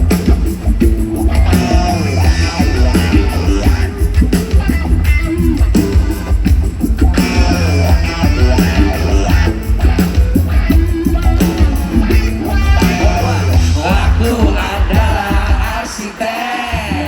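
Live rock band playing loud, with heavy bass and drums, guitar, and voices singing or yelling over it. About a second before the end the bass and drums drop out and it gets quieter.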